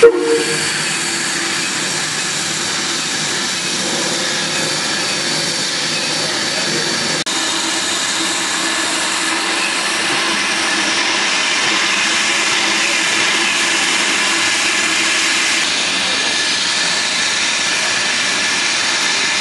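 Steam locomotive standing with steam venting in a steady, loud hiss and rush. A sharp pop comes right at the start.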